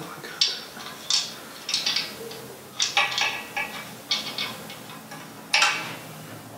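Metal parts of a floor wine corker clanking and rattling as they are handled and fitted together to attach its leg: a string of separate knocks with a short metallic ring, about one every second.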